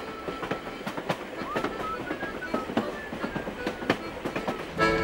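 Railway wagon rattling and clattering along the track, with many irregular knocks and clicks. Accordion music starts near the end.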